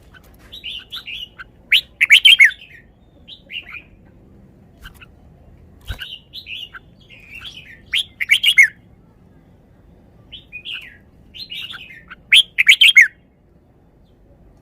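Red-whiskered bulbul singing: three loud, quick song phrases about five seconds apart, each led in by softer chirps. A single sharp knock comes about midway.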